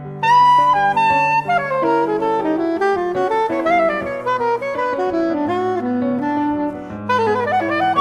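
Soprano saxophone playing an improvised jazz solo line of held notes and quick runs, with piano chords sustained beneath it.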